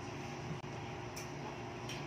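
Quiet room tone: a steady low hum with two faint clicks, about a second in and near the end.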